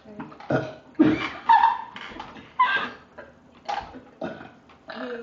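Several short burps in a row, with brief gaps between them.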